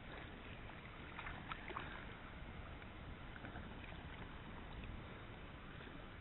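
Quiet water splashing and lapping as a small mulloway (jewfish) is scooped into a landing net beside a kayak, with a few faint splashes about a second and a half in.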